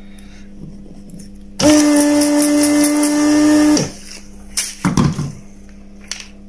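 Weller rework station's desoldering vacuum pump switching on for about two seconds, a steady loud buzz with a hiss, sucking melted solder off a capacitor's pins. A few light clicks follow as the loosened part is handled.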